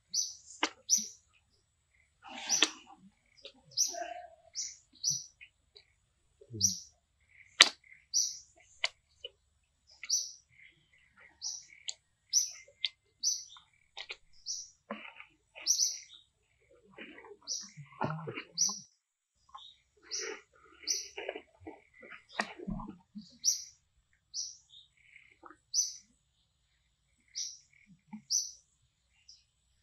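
A bird repeating short, high chirps, roughly one or two a second, with a few sharp clicks and softer scattered sounds between them.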